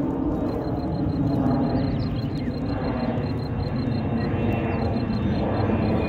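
Steady low outdoor rumble with no clear single source.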